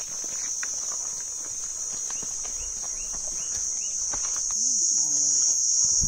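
Steady high-pitched drone of forest insects, growing a little louder toward the end, with faint footsteps on a rocky trail underneath.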